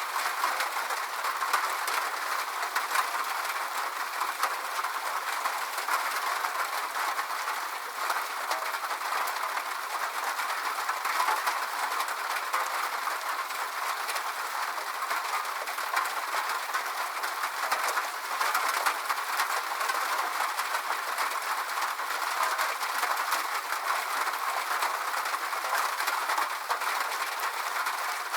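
Steady rain drumming on a metal roof: a dense, even patter of countless tiny drop impacts on sheet metal, with no let-up or change.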